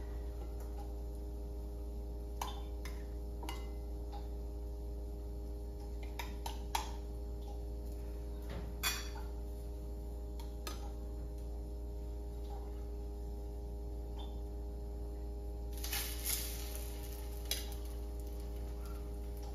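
Kitchen utensils clinking and knocking against a frying pan and dishes while egg-dipped bread is cooked: about half a dozen sharp clinks spread through, and a brief rush of noise about three-quarters of the way in. A steady low hum runs underneath.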